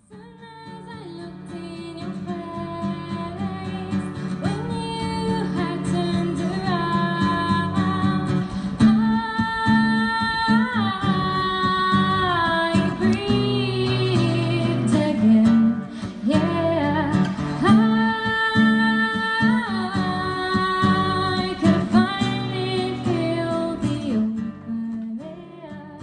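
A woman singing a slow song to a strummed acoustic guitar, performed live. The music fades in over the first few seconds and drops away near the end.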